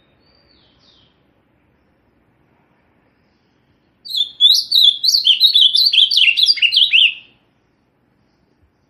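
Azulão da mata, a Brazilian grosbeak, singing: one faint short falling note near the start, then about four seconds in a loud, fast phrase of many short slurred notes lasting about three seconds.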